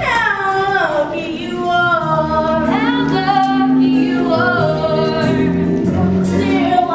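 A musical-theatre song: singing over backing music, with long held notes, a sliding-down phrase at the start and a rising one a little under three seconds in.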